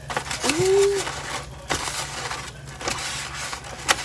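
Kitchen things being handled beside a frying pan: a run of knocks and clatter, loudest in the first second, with a short rising tone about half a second in.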